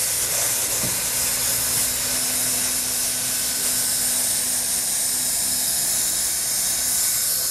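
Handheld hot-air plastic welder blowing a steady hiss of hot air as its nozzle heats the TPO membrane seam at the flange of a pipe flashing.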